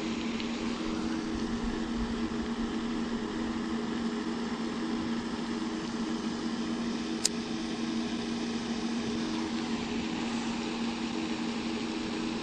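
A steady motor hum with two constant low tones, unchanging throughout, and a single sharp click about seven seconds in.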